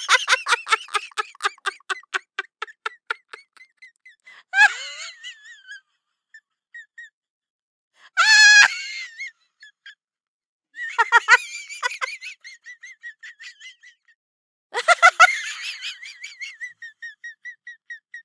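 Indian ringneck parrot calling in separate bursts: fast chattering trills and whistled calls, the loudest a wavering call about eight seconds in.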